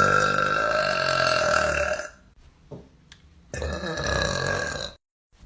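A girl burping loudly twice: one long burp already going that ends about two seconds in, then a second, shorter burp about a second and a half later.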